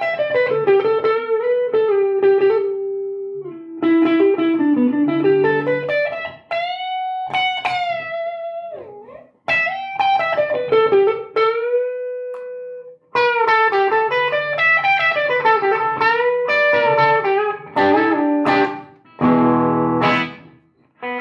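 Electric guitar, a Gibson Les Paul Standard played through a Marshall JCM800 Studio valve head with the preamp turned fully up, playing overdriven single-note lead lines with string bends and vibrato and a chord near the end. It is heard through a lapel mic in the room, not a mic on the cab or a DI.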